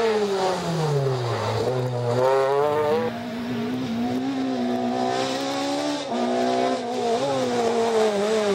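Rally car engines revving hard, the pitch falling as the driver lifts off and climbing again under acceleration. The engine note changes abruptly twice, about three and six seconds in, as one car gives way to the next.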